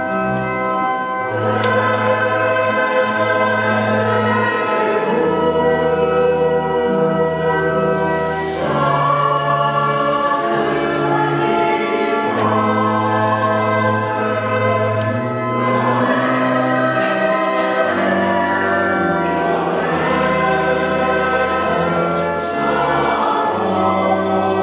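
Mixed church choir of men and women singing together, accompanied by organ that holds long, steady bass notes beneath the voices.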